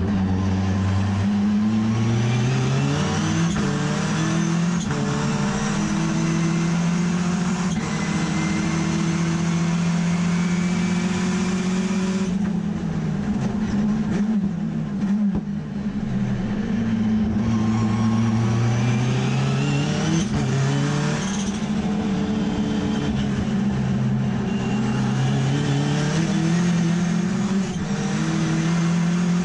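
Mazda RX3 race car's turbocharged rotary engine at full throttle, heard from inside the cabin: it climbs in pitch through the gears with quick upshifts, goes quiet on a lift about halfway with short downshift blips, then accelerates hard through the gears again.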